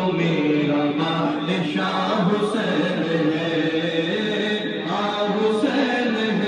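Men's voices chanting a devotional recitation, led through microphones.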